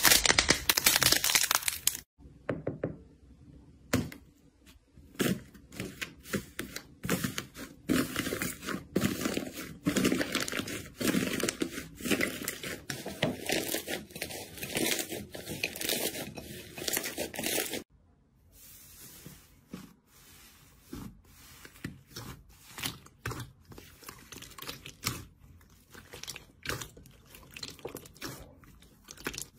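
Hand-played slime. It starts with thick slime being stretched and torn, then crunchy pink slime with crisp white flakes is kneaded with a dense crackling. After a cut about 18 seconds in, glossy slime is squished in a bowl with quieter, scattered wet pops and clicks.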